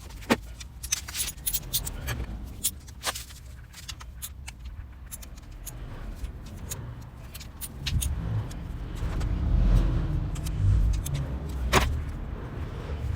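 Scattered metallic clicks and clinks of hand tools and small parts, with a low rumble that builds about two-thirds of the way through and then eases.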